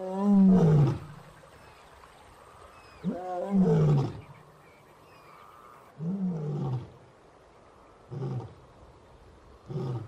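A lion roaring in a bout: three long, loud roars about three seconds apart, each falling in pitch, then two shorter, quieter grunts.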